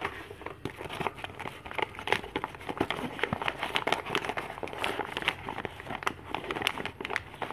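A homemade paper blind bag being crumpled and pulled open by hand: a continuous run of paper crinkling and crackling.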